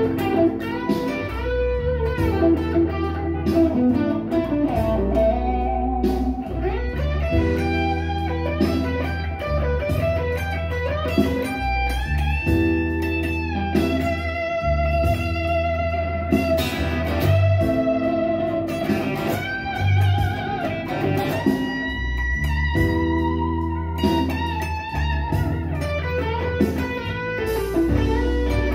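Telecaster electric guitar playing a blues lead with string bends through an overdriven tone, over a backing track with a steady low bass line.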